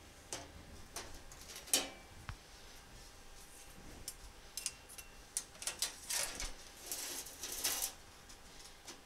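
Light clicks and knocks of hand tools and a sheet of steel being handled on a steel welding table. A cluster of short scraping and clicking sounds comes about five to eight seconds in.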